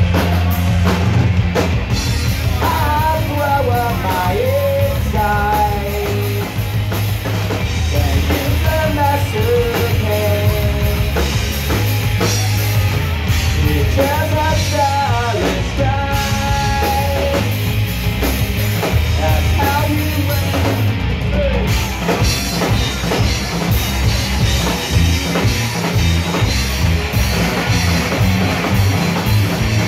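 Live rock band playing loud: electric guitar, electric bass and drum kit, with a melody line that bends and wavers in pitch over the top, coming and going every few seconds.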